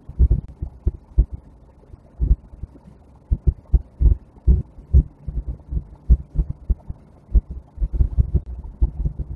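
Uneven low thumps and rumble inside a moving car's cabin, a few a second, with a steady low hum joining from about eight seconds in.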